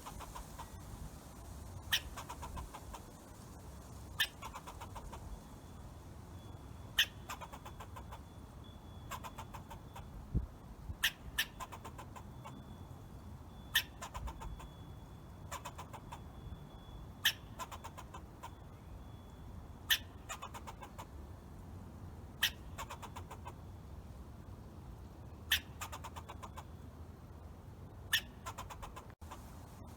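Squirrel calling: about a dozen sharp, short chirps spaced every two to three seconds, each trailing off in a brief buzzy rattle.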